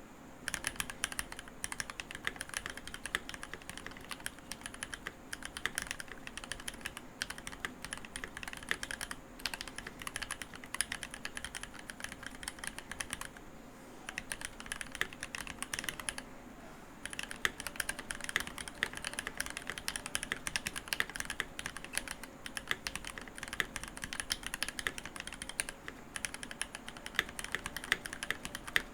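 Continuous fast typing on a Keychron V1 mechanical keyboard with Gateron Cap Milky Yellow linear switches and GMK keycaps: a dense stream of keystrokes that starts about half a second in and pauses briefly twice around the middle.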